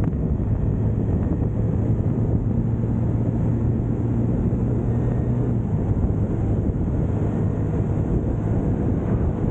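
Husqvarna Svartpilen 401's single-cylinder engine running steadily at highway cruising speed, with wind noise buffeting the microphone.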